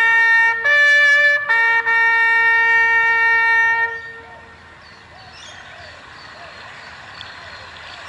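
A brass bugle call ends with a few notes, the last held for over two seconds and stopping about four seconds in. After it, birds chirp and call over a quiet background.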